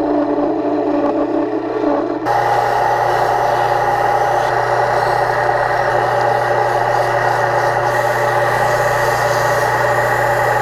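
Wood lathe running steadily with its motor humming, a chisel cutting the spinning oak handle, changing abruptly about two seconds in to sandpaper held against the turning wood.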